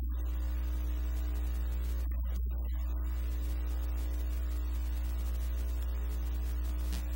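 Steady electrical mains hum with a buzzing series of overtones, unchanging throughout.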